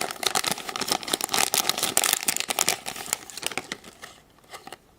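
Thin packaging crinkling and crackling as a My Little Pony toy package is handled and opened, dying away after about four seconds.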